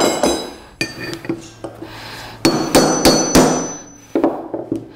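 Steel hand tools, tyre levers and a claw hammer, being set down and knocked together: a string of metal-on-metal clanks, the loudest bunched a little past the middle, one leaving a high ring.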